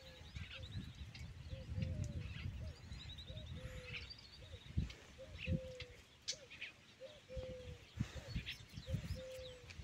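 A dove cooing a low phrase over and over, a couple of short notes and then a longer one, about every one and a half to two seconds. Small birds chirp and trill higher up, over a low rumble with a few soft thumps.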